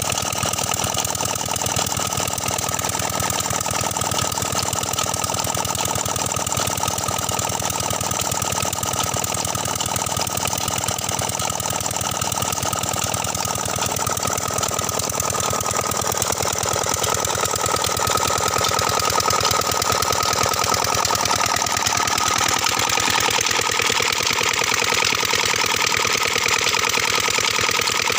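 Old stationary diesel engine running steadily with an even beat while it drives a tubewell pump by belt, with water gushing from the pump's outlet pipe.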